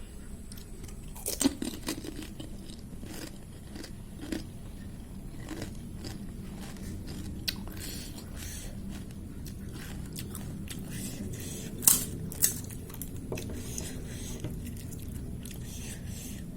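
Crisp golgappa (pani puri) shells crunching as they are bitten and chewed, with scattered sharp crunches, the loudest a pair about twelve seconds in.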